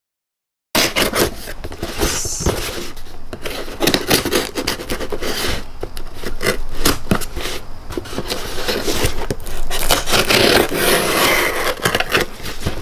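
Folding knife slitting the packing tape on a cardboard shipping box, with cardboard scraping and rubbing as the box is held and turned. It starts after a moment of silence and goes on as a run of short scratchy strokes.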